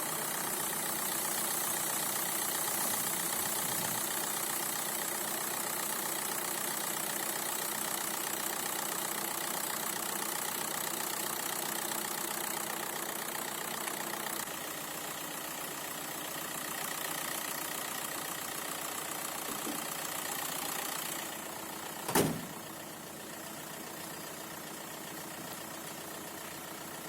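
Skoda Octavia Mk2's 1.9-litre diesel engine idling steadily, freshly started off a jump starter. Near the end, a single sharp knock.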